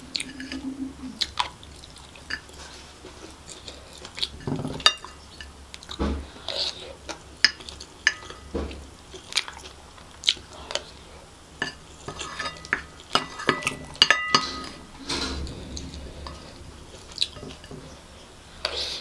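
Wooden spoon scraping and clinking against a ceramic plate as food is scooped up, in irregular sharp clicks, some with a short ringing tone, along with chewing.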